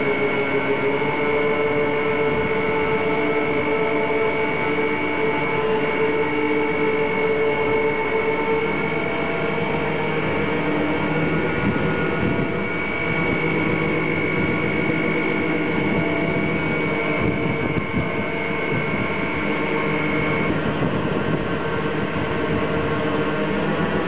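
Harbour crane's hoist machinery running steadily as it lowers a heavy load, with a sustained high whine over a lower mechanical hum.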